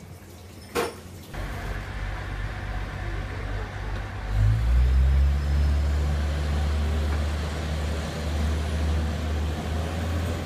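A single sharp knock about a second in, then an Aizu Railway diesel railcar's engine running: a low drone that grows louder and fuller about four seconds in and then holds steady.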